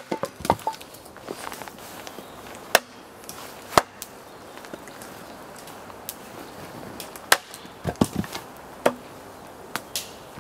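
Fiskars X10-S axe splitting birch wood on a stump chopping block: sharp chopping knocks at irregular intervals, with split pieces clattering down, the loudest blows at the start, about four seconds in and about seven seconds in.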